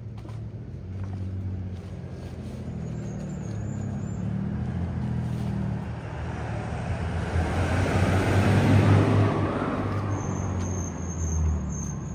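A motor vehicle passing: engine hum and road noise build steadily to a peak about nine seconds in, then begin to fall away.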